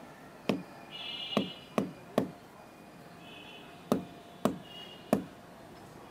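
Hard woody mahogany fruit capsule knocked against a brick wall, seven sharp knocks in two bursts, to crack the pod open and free its seeds.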